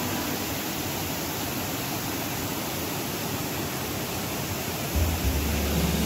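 Steady rush of a river cascade, white water tumbling over rocks. About five seconds in, a deep low hum comes in over it.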